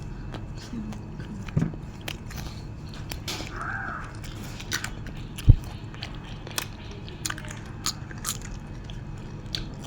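Close-up chewing and biting of nam tok moo, a spicy grilled-pork salad: irregular wet clicks and small crunches, with one louder low thump about five and a half seconds in.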